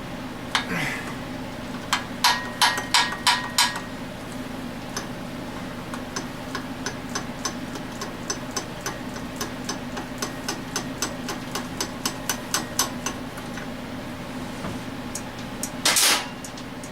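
Hand tools working on a small engine's metal parts: a run of sharp metallic taps and clicks, strongest in a quick series a couple of seconds in, then lighter and evenly spaced at about three a second, with a brief louder clatter near the end, over a steady low hum.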